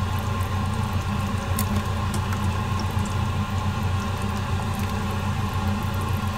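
A pot of sinigang broth simmering, under a steady low hum. About two seconds in, a couple of faint soft splashes come as sliced eggplant is dropped into the broth.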